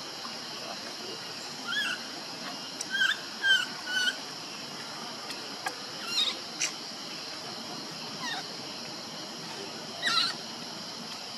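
Baby macaque giving short, high-pitched squeaking cries, a cluster of them in the first half and one more near the end, over a steady background hiss. These are the distress cries of an infant left alone by its mother.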